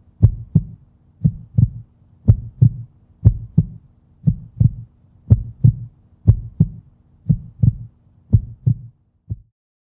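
Heartbeat sound effect: low paired thumps, lub-dub, about once a second over a faint steady hum. It ends on a single beat shortly before the end.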